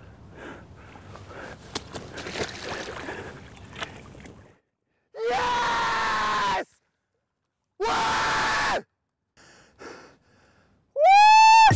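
Faint splashing and sloshing of a big carp wallowing at the surface during the last of the fight. Then a man yells loudly and at length twice, and a third, louder yell rises in pitch near the end.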